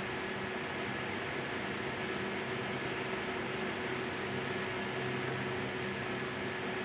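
Steady hiss and electrical hum with a few constant faint tones and no distinct events.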